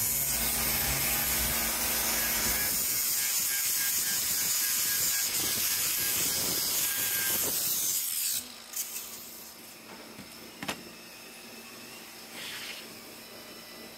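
Handheld grinder with an abrasive disc deburring the edge of a steel flat bar: a steady grinding hiss that cuts off about eight seconds in, followed by a few light knocks as the part is handled.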